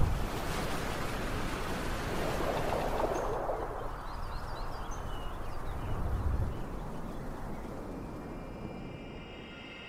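Outdoor ambience: a steady noisy rush with a low thud at the start and another about six seconds in, and a few short bird chirps around four to five seconds in. Soft held music tones come in near the end.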